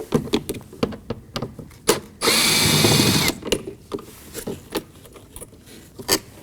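Power driver running for about a second as it backs out a Phillips head screw from the door trim panel. Scattered sharp clicks and taps of the tool and the plastic come before and after it.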